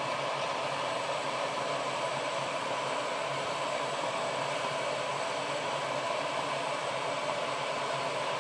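Gas stove burner flame burning with a steady, even rushing hiss.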